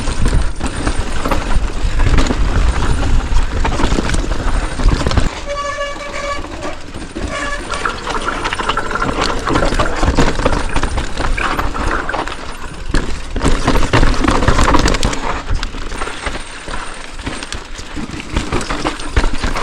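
Wind buffeting a helmet-mounted action camera, mixed with tyre and rattle noise from a fast ride down a dirt trail. A short pitched hoot or call comes about six seconds in.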